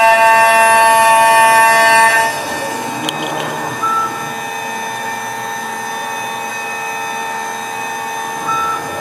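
High-speed spindle of a mini 5-axis CNC milling machine running with a steady whine of several tones. About two seconds in it drops to a quieter, slightly changed whine, and there is a click near three seconds.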